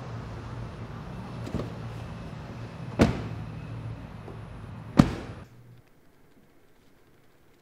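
Two car doors slam shut about two seconds apart, the second the louder, over a steady low hum. A lighter knock comes about a second and a half in. Soon after the second slam the sound drops abruptly to quiet room tone.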